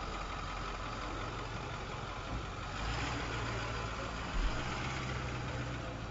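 Heavy-duty diesel truck engine idling steadily, with a brief low bump about four seconds in.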